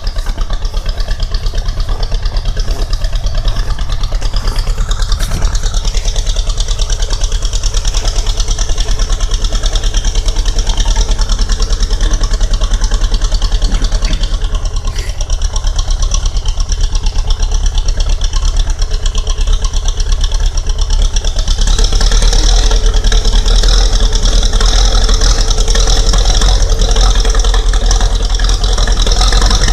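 Zetor tractor's diesel engine running cold just after a hard start in −23 °C frost. It runs steadily, then gets louder about two-thirds of the way through.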